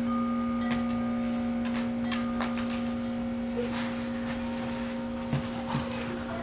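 A steady hum at one low pitch, with a fainter higher tone above it and scattered faint clicks and ticks.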